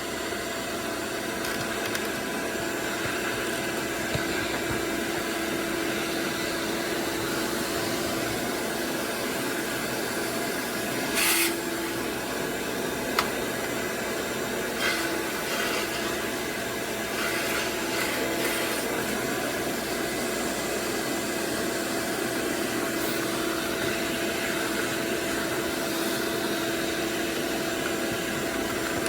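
Shop vac running steadily, vacuuming lint out of a clogged dryer vent duct, with a constant hum. A few short knocks or rattles come about 11 and 13 seconds in.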